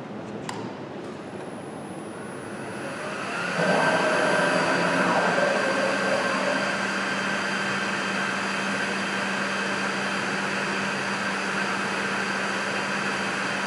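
CNC router running a G-code program from Mach3. A click near the start, then the machine's running sound swells over about a second and settles into a steady whine over a low hum.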